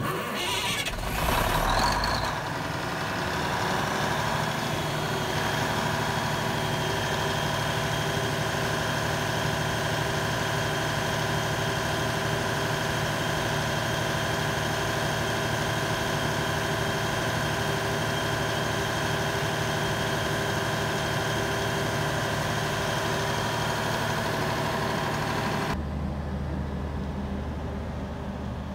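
Cummins 400 kVA diesel generator set starting up, busier for the first couple of seconds, then running steadily. Near the end the sound turns deeper and more muffled, heard from outside the acoustic canopy.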